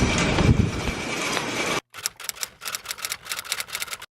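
Steady rumbling vehicle or train noise that cuts off abruptly, followed by about two seconds of quick, light clicking and tapping, several clicks a second.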